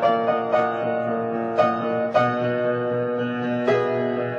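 Solo piano playing a slow classical piece: single notes and chords struck every half second to a second and a half and left to ring.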